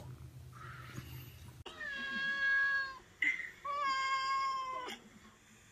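A domestic cat meowing twice: two long, drawn-out meows held at an even pitch, each over a second long, the second coming about half a second after the first ends.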